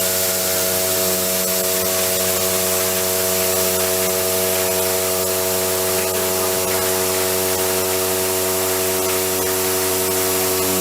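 SDV-HLA machining center taking a heavy milling cut: a steady, even tone with a ladder of overtones over a constant hiss.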